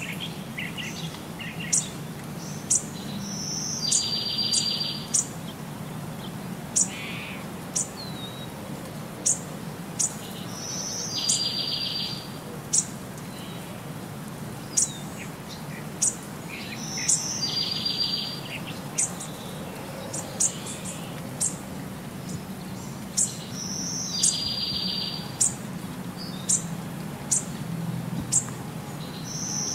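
Birdsong: short, sharp high chirps about once a second, with a buzzy trill that repeats every six to seven seconds, over a steady low hum. The same pattern carries on unchanged across the cuts, like a looped ambient bird track.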